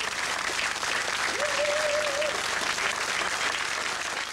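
Theatre audience applauding steadily after a song, with a brief held tone rising above it about a second and a half in.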